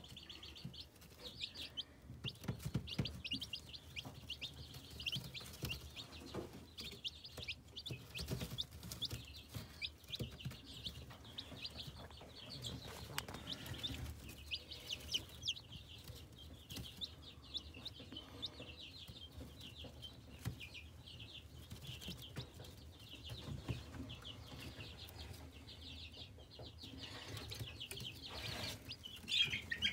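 A brood of three-week-old chicks peeping in a brooder: many short, high chirps overlapping without a break, over faint low knocks.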